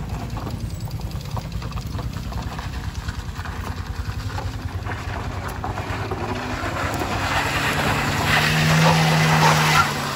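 Motorcycle and car engines working up a steep loose-gravel slope, with a low, steady engine pulse. The sound grows louder over the last few seconds as the vehicles come close, with tyre noise on the gravel.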